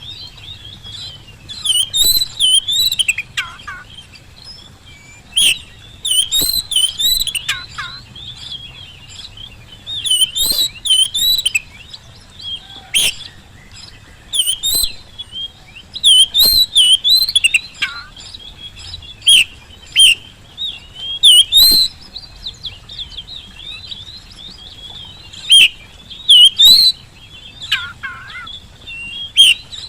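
Oriental magpie-robin (kacer) singing loudly in bursts of rapid, warbling whistled phrases, with sharp high notes and short quieter gaps between phrases.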